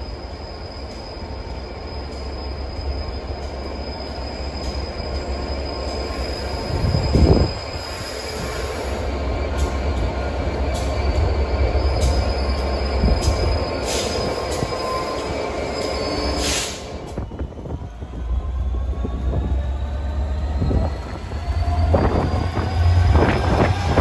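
Colas Rail Freight Class 67 diesel locomotive, with its two-stroke V12 engine, approaching along the platform and rolling slowly past, with a low engine rumble that grows louder near the end. Thin high squeals come from the wheels. A brief loud thump sounds about seven seconds in, and thin rising whines start in the second half.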